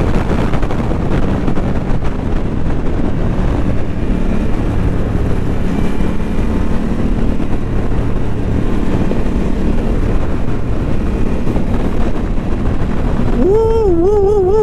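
Ducati motorcycle engine running steadily at road speed in third gear, with wind rushing over the bike-mounted microphone. Near the end a person's voice rises and falls briefly over it.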